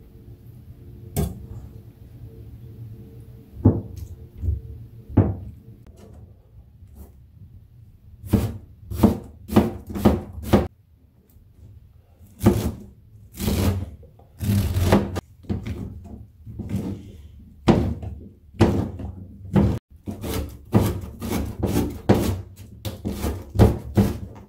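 Kitchen knife striking a plastic cutting board on a stainless-steel counter as it cuts through tofu, enoki mushrooms and spring onion: a few single knocks at first, then quick runs of chopping strokes from about a third of the way in.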